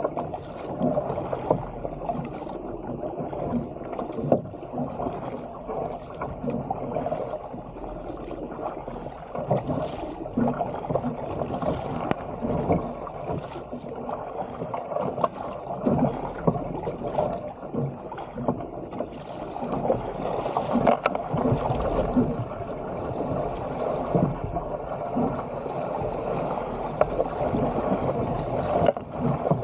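Seawater rushing and splashing along a sit-on-top fishing kayak's hull as it is paddled downwind through choppy waves, with irregular sharper splashes from the paddle blades and the wave crests.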